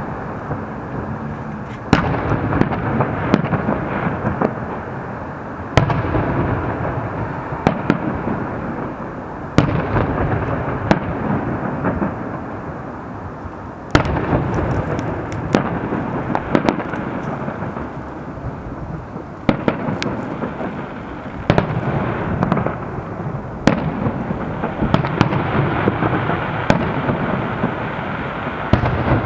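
A fireworks display: aerial shells burst with sharp bangs every few seconds, and smaller pops fall in between. A continuous rumble and crackle of echoing bursts carries on under them.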